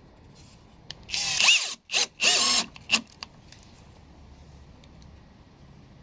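Cordless drill-driver driving a wood screw into a plywood loom frame: two runs of about half a second and two short blips about a second in, the motor's pitch sagging as the screw bites into the wood.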